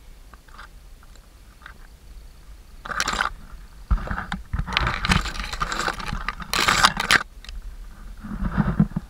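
Tall dry grass brushing and scraping against the camera microphone as it is carried up through the meadow, in crackling bursts: a short one about three seconds in, a longer one from about four to seven seconds, and another near the end.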